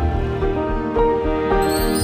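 Background music: sustained pitched notes over a steady low beat, with a rising whoosh starting near the end.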